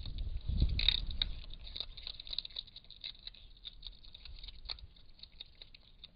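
Eurasian otter noisily crunching its food, a fast, irregular run of sharp crunching clicks. The crunching is loudest and joined by a deeper rumble about half a second to a second and a half in.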